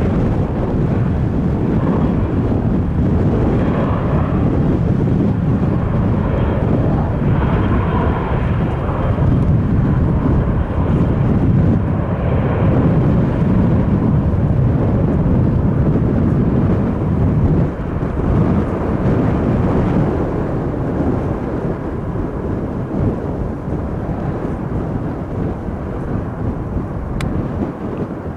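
Airbus A319 airliner's jet engines giving a steady, deep rumble as the plane moves along the ground. The rumble eases a little about two-thirds of the way through.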